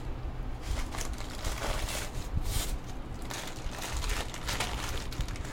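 Rustling and crinkling of a non-woven carry bag and paper-wrapped packets being handled, in irregular bursts.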